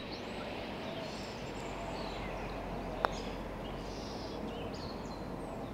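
Birds chirping over a steady outdoor background, with a single sharp click about three seconds in: a putter striking a golf ball.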